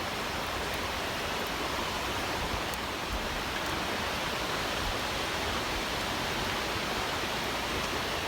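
Campfire of pine needles and pine cones catching and burning, a steady rushing hiss with a few faint crackles.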